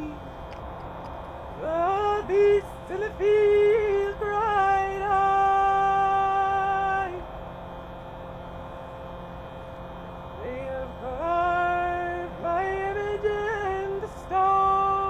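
A woman's voice singing long held notes, sliding up into each note and holding it, in two long phrases with a pause between them, over a faint steady drone.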